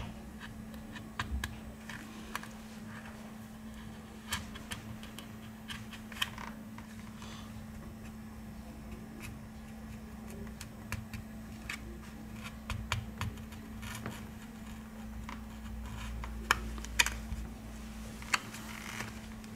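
A plastic card being slid along the seam of an HTC A9 smartphone to pry the phone open, giving irregular light clicks and ticks, with two sharper clicks near the end. A steady low hum runs underneath.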